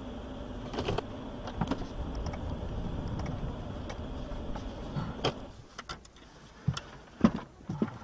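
Car running along a town street as heard inside the cabin: a steady engine and road drone with a few light clicks. About five and a half seconds in it drops quieter as the car comes to a stop, and several sharp clicks and knocks follow near the end.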